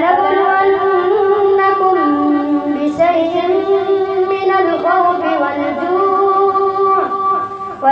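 A boy's voice reciting the Quran aloud in Arabic in the chanted, melodic Taraweeh prayer style, drawing out long held notes that glide between pitches.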